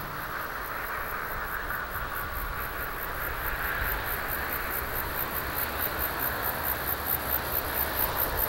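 Insects chirping in a steady rhythm of high-pitched pulses, about five a second, growing louder toward the end, over a soft even hiss of field ambience.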